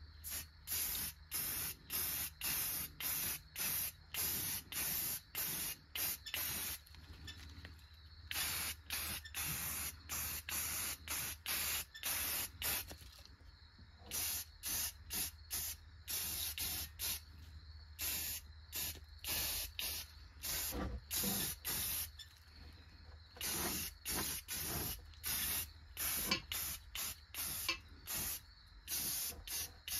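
Aerosol can of Rust-Oleum automotive filler primer sprayed in short hissing bursts, about two a second, with a few breaks of about a second between runs.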